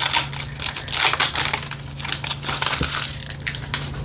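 Foil wrapper of a Pokémon card booster pack crinkling and crackling as it is torn open by hand.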